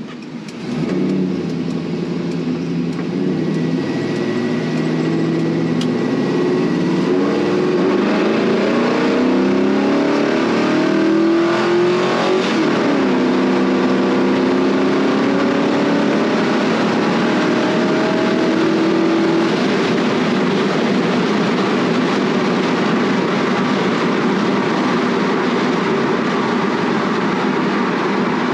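Gen 3 6.0-litre LS V8 in a 1957 Chevy truck pulling away from a stop, heard from inside the cab. The engine pitch climbs, drops at an upshift of the 4L80E automatic about twelve seconds in, and climbs again. It then settles into a steady cruising drone.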